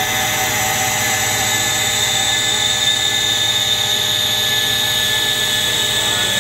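CNC turret lathe running a threading pass: a steady high machine whine from the spindle and feed drives as the threading insert feeds along the turning bar.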